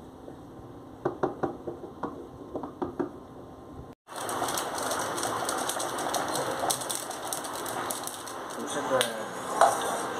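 Wooden spatula stirring chicken curry in a nonstick pan, knocking and scraping against the pan several times in the first few seconds. After a cut comes a louder, steady noisy background with small clicks and crinkles as a spice sachet is emptied into the gravy.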